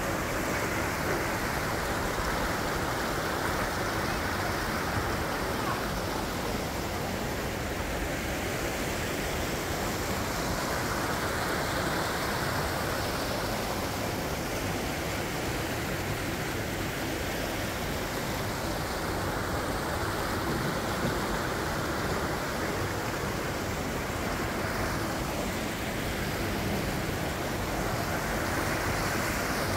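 Shallow, fast stream rushing over rocks beneath a small footbridge: a steady rush of water.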